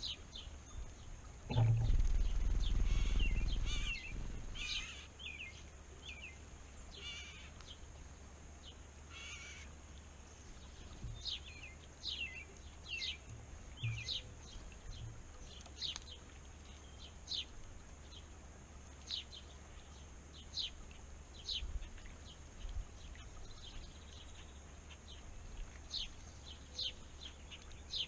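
Small songbirds chirping: short, high, falling chirps repeated every second or so. About two seconds in, a loud low rumble lasts a couple of seconds.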